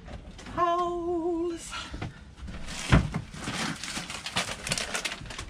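A voice hums or sings out a long, wavering note, then a sharp thump about three seconds in is followed by rustling and light knocking as items are packed into a motorhome's overhead kitchen locker.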